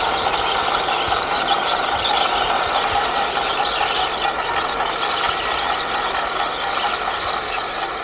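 Radio-controlled model crawler bulldozer driving slowly over gravel, giving a steady high-pitched squeal.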